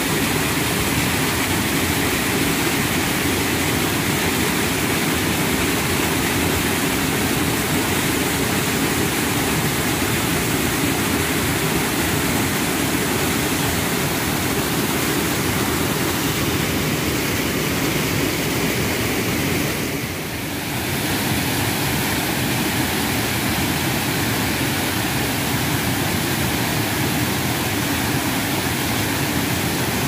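Waterfall pouring over rock ledges into a pool: a steady, loud rush of falling water. It dips briefly about two-thirds of the way through.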